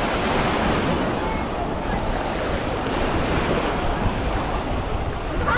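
Sea surf washing onto a sandy beach, with wind buffeting the microphone in a steady low rumble.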